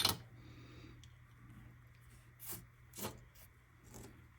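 Light knocks and clicks of small tools and wire being handled on a workbench, about four of them with the first the loudest, over a steady low hum.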